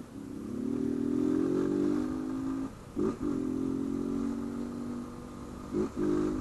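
Honda CG 160 Fan single-cylinder motorcycle engine, run with its air-intake hose removed, held at steady high revs. The revs drop off sharply about 2.7 s in, a quick throttle blip follows, and it holds high again until another short blip near the end.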